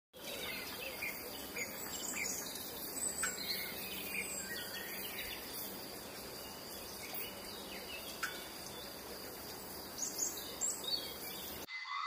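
Forest ambience: scattered bird chirps and short whistled calls over a steady high insect drone and a hiss, with a few louder chirps about ten seconds in.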